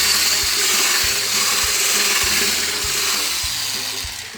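Electric hand mixer whisking egg whites for meringue: a steady motor-driven whir of the beaters in the bowl that eases off near the end.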